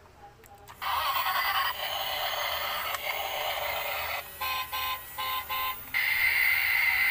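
A battery-powered Thomas the Tank Engine transforming robot toy, switched on, playing its electronic sound effects. The sound starts suddenly about a second in, breaks into three short beeps about halfway through, then runs on louder.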